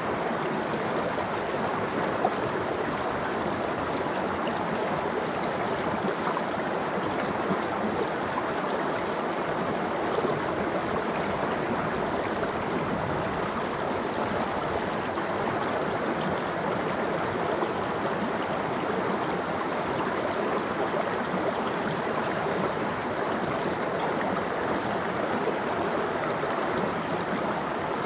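Mountain stream flowing steadily over rocks, a continuous even rush of running water.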